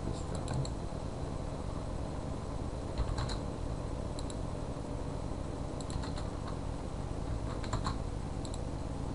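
Scattered light clicks of a computer mouse and keyboard, a few at a time and some in quick pairs, over a steady low background hum.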